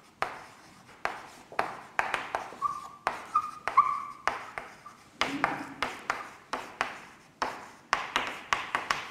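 Writing on a board: an irregular run of sharp taps and strokes, several a second, with a few short squeaks about three seconds in.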